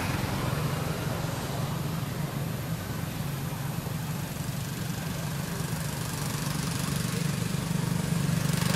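A steady low engine-like hum, as from a motor running at a constant speed, over a light even hiss, growing slightly louder near the end.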